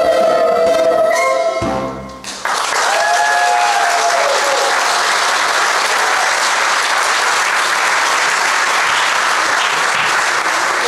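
A children's chorus and accompaniment hold the final note of a song, cutting off about two seconds in. The audience then breaks into loud, steady applause.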